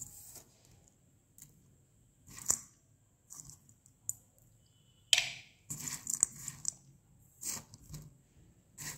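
Dry chunks of multani mitti (Fuller's earth clay) in a stainless-steel bowl being pressed and crushed by fingers: scattered crisp crunches and cracks, with a quick cluster of them from about five to seven seconds in.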